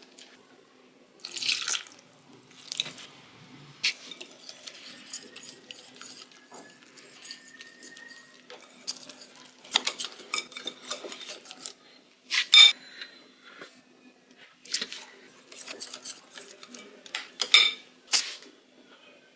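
Kitchen utensils clattering and clinking against bowls and dishes during food preparation, with a few sharp ringing metal clinks, the loudest about twelve seconds in, over a faint steady hum.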